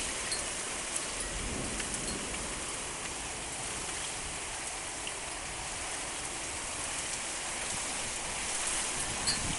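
Rain pouring down steadily in a severe windstorm, an even hiss with scattered small drop ticks.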